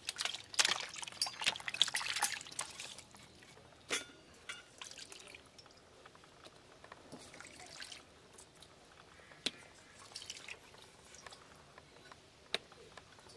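Water splashing and dripping in a steel plate as rohu fish heads are rubbed and washed by hand. It is busiest in the first few seconds, then thins to a few scattered drips and clicks.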